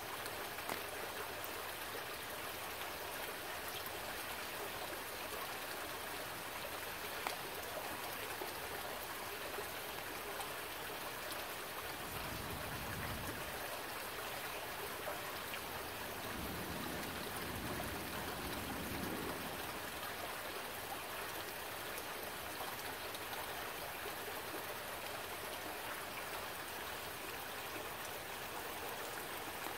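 Shallow forest stream running over rocks: a steady rushing, with a low rumble swelling twice near the middle.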